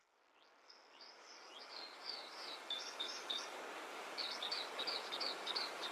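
Songbird chirping in quick, high twittering notes, in two runs with a short pause between, over a steady outdoor background hiss; the sound fades in from silence over the first seconds.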